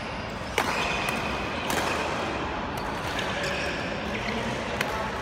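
Badminton rackets striking a shuttlecock in a rally: several sharp hits a second or more apart, the loudest about half a second in. Short squeaks of court shoes on the floor sound between the hits, over a steady background hum.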